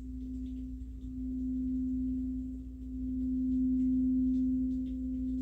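Singing bowl sounding one steady, nearly pure low tone that swells louder about a second in and again around the middle.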